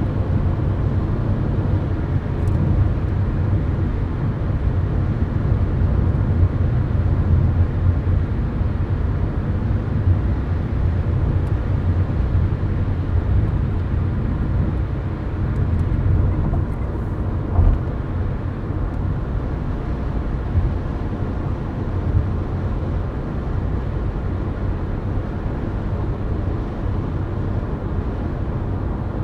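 Steady road noise of a car driving at highway speed, heard from inside the cabin: a low tyre and engine rumble with no real change in pitch. A brief thump sounds a little after halfway.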